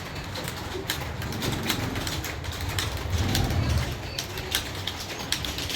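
Computer keyboard keys being typed: irregular sharp clicks, several a second, through the whole stretch. A low rumbling swells a little after three seconds in and fades by about four seconds.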